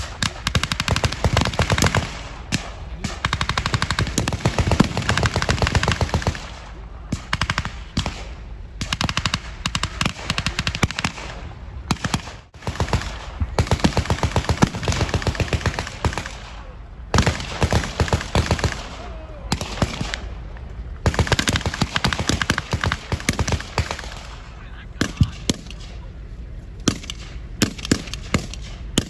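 Battle-reenactment gunfire with blanks: long, rapid bursts of machine-gun fire mixed with rifle shots, coming in runs of a few seconds with short pauses. Near the end it thins out to scattered single shots.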